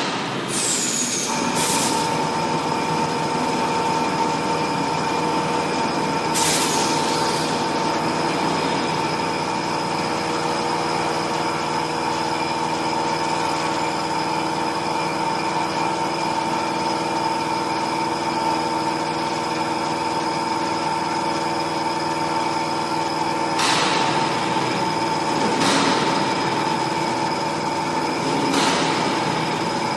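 XH7145/VMC650 vertical CNC machining center running: a steady machine whine made of several constant tones, the strongest coming in about a second in, with a few short hissing bursts over it, about two and six seconds in and three times near the end.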